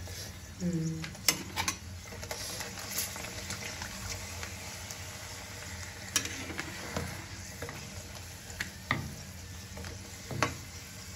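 A puri deep-frying in hot oil in an iron kadhai: a steady sizzle, with a steel spatula clinking sharply against the pan about half a dozen times as it presses and turns the puri.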